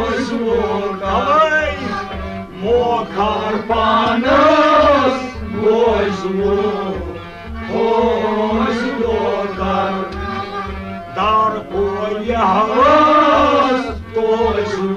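Kashmiri Sufi kalaam: a male voice sings long melismatic phrases over a steady drone and a regular low drum beat.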